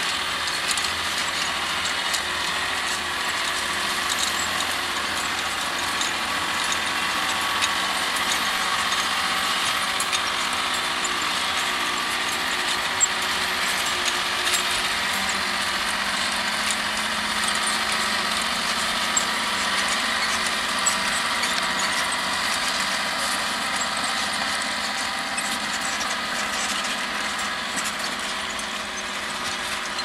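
John Deere 6155R tractor's six-cylinder diesel running steadily under load, pulling a four-furrow Kverneland reversible mouldboard plough and Packomat furrow press through the soil. A few sharp clicks stand out over the steady engine sound.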